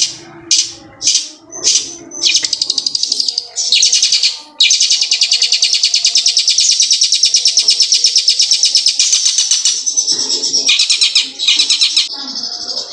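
Long-tailed shrike (cendet) singing loudly in the style of a ciblek gunung kristal prinia: a few short high chirping phrases, then a long, very fast trill starting about four and a half seconds in and running about five seconds, then more short phrases near the end.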